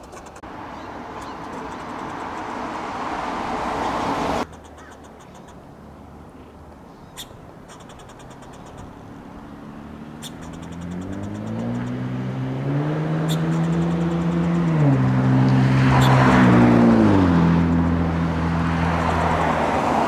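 Road traffic: a passing car's noise swells over the first few seconds and cuts off suddenly. Later another vehicle engine accelerates through the gears, its pitch climbing in steps and dropping at each shift, growing loudest near the end as it passes.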